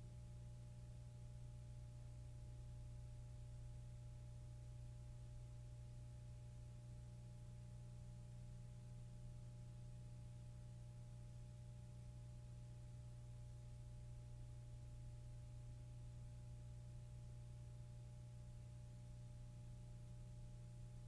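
Near silence: only a steady low hum with faint higher tones. No brush or pen strokes can be heard.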